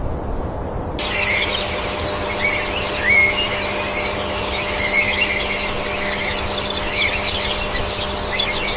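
A low rumble that cuts off about a second in, giving way to birds chirping and twittering continuously over a steady low hum.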